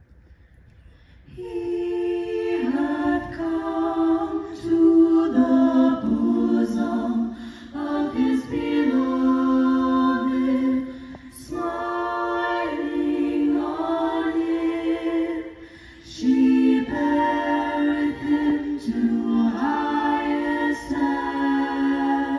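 Mixed-voice a cappella group singing held chords in close harmony, coming in about a second and a half in and moving in phrases with brief breaks.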